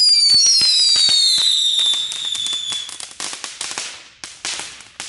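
Small category 1 whistling fireworks going off: two high whistles fall in pitch over about three seconds. Rapid sharp crackling pops run alongside them and carry on after the whistles fade.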